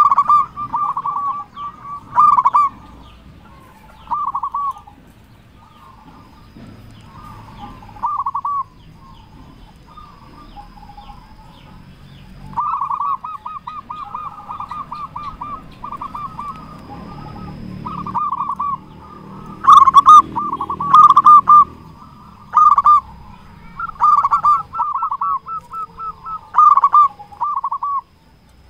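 Zebra dove (perkutut) cooing: repeated short phrases of quick, trilling coo notes with pauses of a second or two between them, some phrases louder than others. It is in full song (gacor), the kind of song kept as a master recording to set other perkutut calling.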